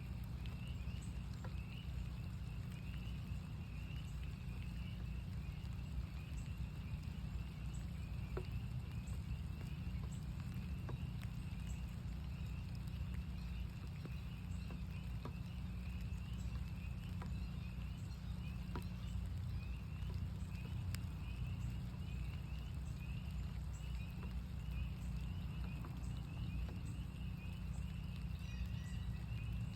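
A chorus of northern spring peepers, many high peeps overlapping in a continuous stream, with scattered ticks of raindrops and a steady low rumble underneath.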